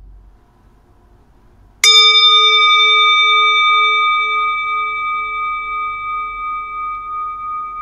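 A metal singing bowl struck once with a wooden mallet about two seconds in, then ringing on with several clear overtones that fade slowly, its lowest tone wobbling in slow pulses. It sounds as the call to a time of prayer.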